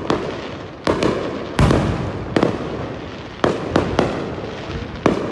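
Fireworks going off: about eight sharp bangs, each trailing off in a rolling rumble, the loudest about a third of the way in.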